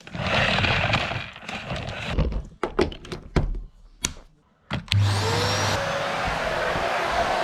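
A string of sharp clicks and knocks, then about five seconds in a motor starts up with a rising whine and keeps running with a steady rushing noise, like a vacuum cleaner.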